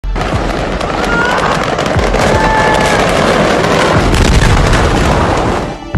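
Fireworks going off in a large fire: a dense, loud, continuous crackling and popping, with a few brief faint whistles in the first half.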